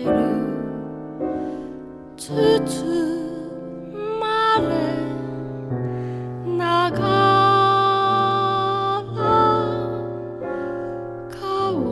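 Slow, gentle music: a melody of held notes, some wavering or sliding slightly in pitch, over sustained low chords.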